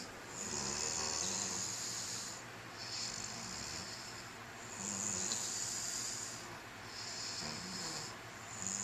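A father and his young son snoring together in their sleep: airy, hissing breaths that repeat about every two seconds, with a low rasp under some of them.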